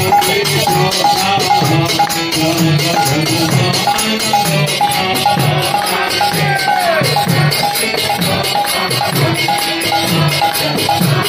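Devotional kirtan music: brass kartals (small hand cymbals) clashing in a fast, steady rhythm over regular beats of a mridanga drum.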